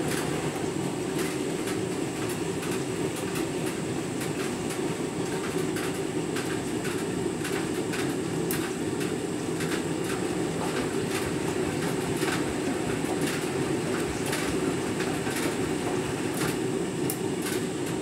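Candy Grand'O Vita 7 kg front-loading washing machine tumbling a half load in its deep rinse: a steady rumble of the turning drum with water sloshing through the wet laundry, and frequent light irregular clicks.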